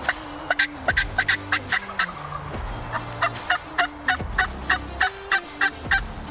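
Wild turkey calling: a long series of short, sharp notes about four or five a second, with a brief gap near the middle. Low background music runs underneath.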